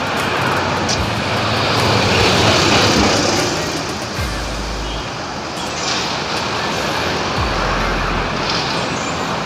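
Road traffic: cars and trucks passing on a busy street, one passing close and loudest around two to three seconds in.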